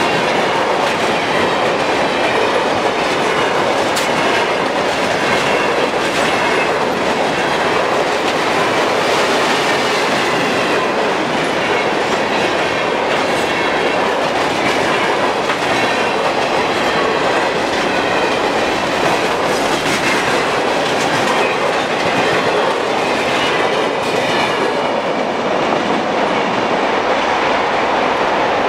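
Freight train hopper cars rolling past on a curve: a steady rumble of steel wheels on rail with clickety-clack over the joints and a faint wheel squeal. The high end of the sound thins out near the end as the last car goes by.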